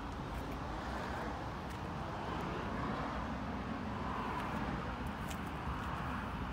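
Steady outdoor background noise with no clear pitch, rising a little in the middle, and a few faint clicks.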